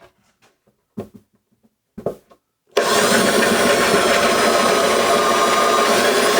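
Drill spinning a 5/8-inch Forstner bit to bore a shallow recess in wood, starting about a third of the way in and running steadily for about four seconds with a constant motor whine. A few faint knocks of handling come before it.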